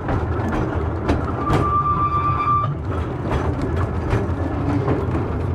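Seaton Tramway narrow-gauge electric tramcar running along its track, heard from on board: a steady low rumble with irregular clicks and knocks from the wheels on the rails. Just after a second in, a steady high tone sounds for about a second and a half.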